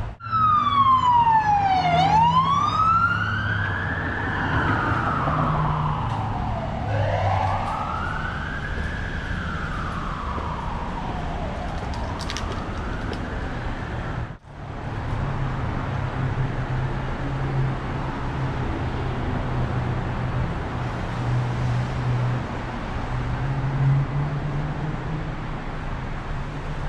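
An emergency vehicle's siren wailing, its pitch sliding slowly up and down about three times before fading out, over a low steady rumble. After a brief break about halfway through, only the low rumble remains.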